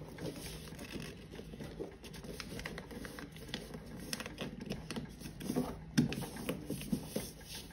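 A sheet of A4 paper rustling and crinkling as fingers fold and crease the wings of a paper dart against a cutting mat, in short irregular scrapes and taps, with one sharper tap about six seconds in.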